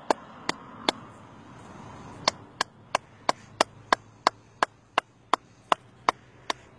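Hands clapping in a steady rhythm, about three sharp claps a second, with a pause of about a second and a half near the start. The clapping is done to call fish up to the water's edge.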